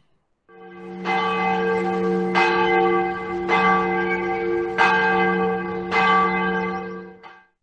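Large bell tolling, struck five times at an even pace of about one strike every second and a quarter, each strike ringing on into the next. The ringing fades in at the start and cuts off just before the end.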